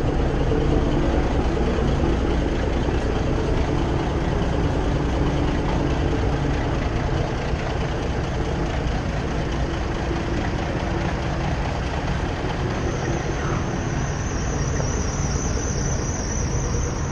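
Diesel engine of a 352 Peterbilt cabover idling steadily, growing weaker as the listener walks away from it, over the drone of a truck-stop lot. A high wavering whine joins in near the end.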